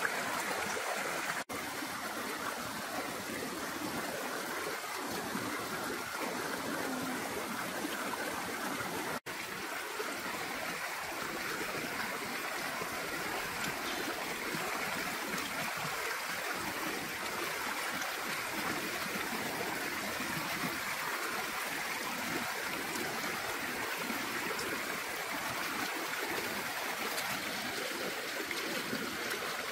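Shallow stream running over rocks: a steady rushing and gurgling of water. The sound cuts out for an instant twice, once just after the start and once about a third of the way in.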